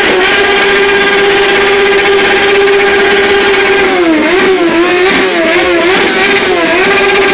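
Motorcycle engine running at steady revs, then its pitch dipping and rising several times in the second half as the throttle is eased and opened.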